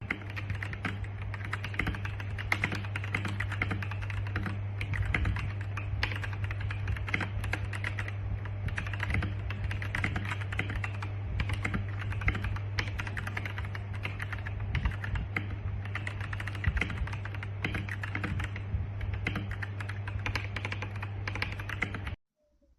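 Continuous fast typing on a Royal Kludge RK R87 mechanical keyboard, a dense irregular stream of key clacks over a steady low hum. It cuts off abruptly just before the end.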